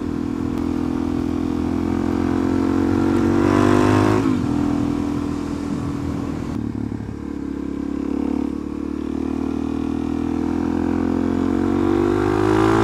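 Suzuki DR-Z400SM's single-cylinder four-stroke engine pulling under acceleration on the move. Its pitch rises, drops at a gear change about four seconds in, then climbs again toward the end.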